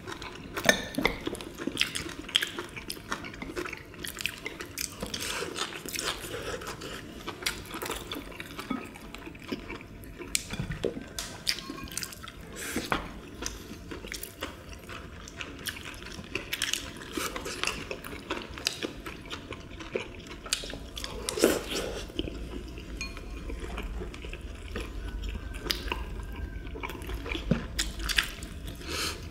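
Eating sounds: wet chewing and mouth noises, with chopsticks clicking against ceramic bowls and plates again and again.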